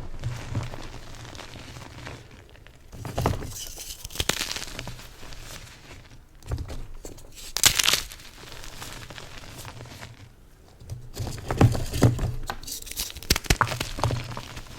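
Soft, yellow-dyed BSN gym chalk being crushed, crumbling and crunching in irregular bursts. There is a sharp, louder crunch near the middle and a quick run of crunches in the last few seconds.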